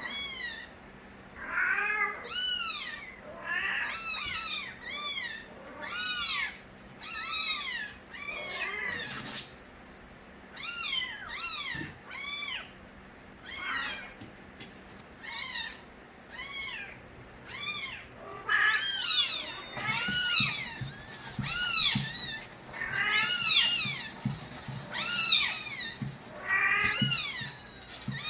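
Stray kittens meowing loudly: a run of short, high-pitched cries, about one a second, with several kittens calling over one another at times.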